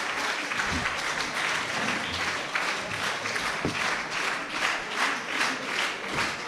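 Audience applauding after a song, the clapping settling into a rhythmic beat in unison over the last couple of seconds.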